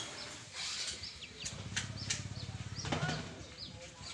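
Young chicks peeping over and over, short high-pitched falling peeps about two a second. A few sharp clicks and a low pulsing hum come in the middle.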